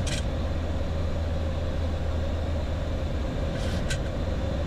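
Steady flight-deck noise of a Boeing 737-800 climbing after takeoff: a low drone with a constant hum in it, broken by a brief hiss right at the start and another about three and a half seconds in.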